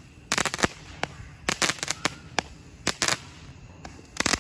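Consumer fireworks being shot off from the ground: a string of sharp bangs and pops, some single and some in quick clusters of three or four, coming every half second to a second.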